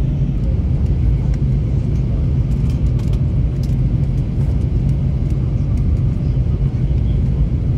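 Steady cabin noise of a jet airliner in flight, heard from a passenger seat: the engines and rushing air make a low, even rumble.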